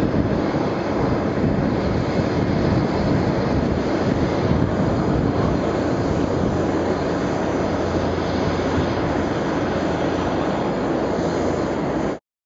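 Boeing 747-8I's four GEnx turbofan jet engines running as the jumbo jet taxis and turns on the runway: a steady, low rumble that cuts off suddenly near the end.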